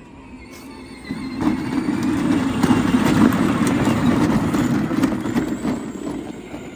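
Peg Perego ride-on toy tractor driving, its plastic wheels rolling and rattling over the ground, starting about a second in and running steadily until it eases off near the end.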